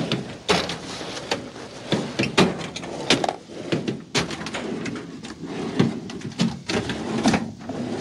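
Rummaging through parts and objects: irregular knocks, clatters and scrapes as things are moved around, with the loudest knocks about half a second in, around two and a half seconds, about four seconds in and again near the end.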